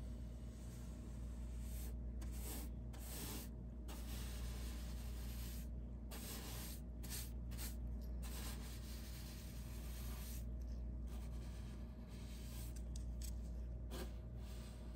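Angled paintbrush stroking paint onto a ribbed wall: repeated scratchy swishes of the bristles, broken by short pauses as the brush lifts. A steady low hum runs underneath.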